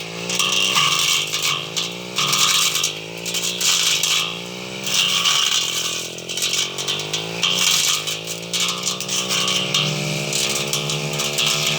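Two-stroke brush cutter engine running, its pitch rising and falling over and over as the throttle is worked while cutting grass.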